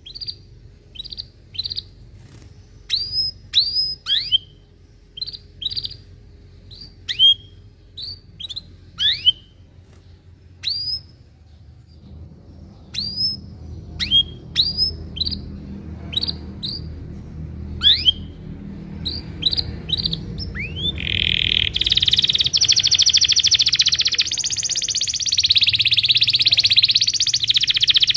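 Domestic canary singing: a string of separate sharp, down-slurred chirps, then, about 21 s in, a loud continuous rapid rolling trill.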